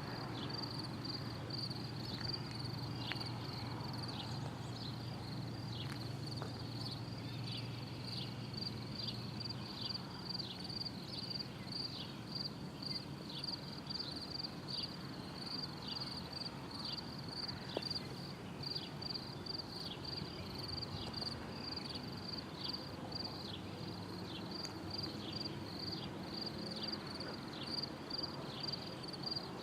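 A small animal chirping steadily: short high chirps, about one and a half a second, each dropping in pitch, over a faint low hum.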